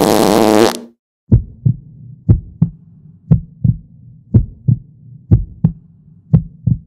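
Heartbeat sound effect: paired low lub-dub thumps about once a second over a faint low hum. It starts just after a loud, noisy preceding effect cuts off under a second in.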